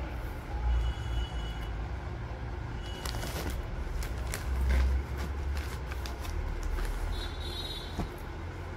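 Clear plastic packaging of a bedsheet rustling and crinkling as it is handled, unzipped and the folded sheet pulled out, with scattered sharp crackles over a steady low rumble.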